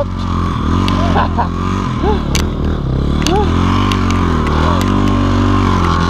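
Motorcycle engine running under load, its revs rising and falling again and again as the bike pushes through deep snow.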